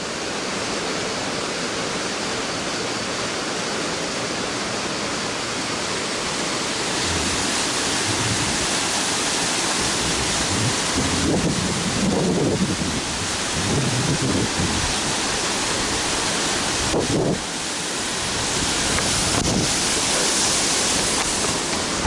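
Waterfall plunging into its rock pool close by: a steady, even rush of falling water that does not let up. Faint voices come through briefly around the middle.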